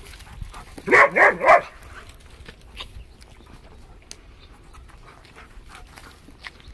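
A dog barking three times in quick succession, then faint scattered clicks.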